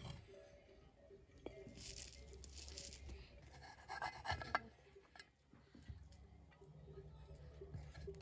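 Wooden spatula scooping cooked rice out of a steel pot: faint scraping, with a few light knocks against the pot.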